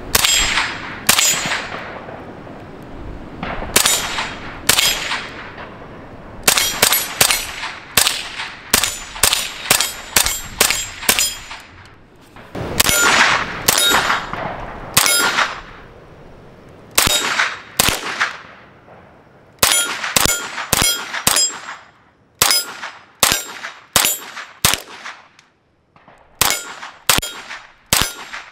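CZ Scorpion .22 LR firing semi-automatic in quick strings of shots with short pauses between them. Each shot is followed by the bright ringing clang of a struck steel target.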